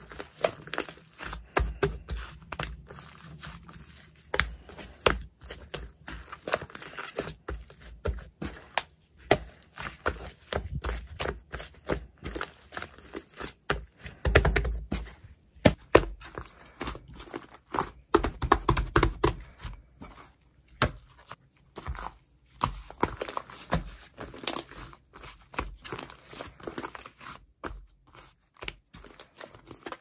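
Fluffy pale-green slime being stretched, pressed and squeezed by hand, giving a dense, irregular run of sticky crackles and clicking pops.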